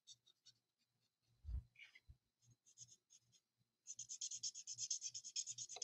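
Faint scratching of a Smoky Slate alcohol marker's tip on cardstock. It starts about four seconds in as a fast run of short colouring strokes, about five a second. Before that there are only a few faint taps and a soft low bump.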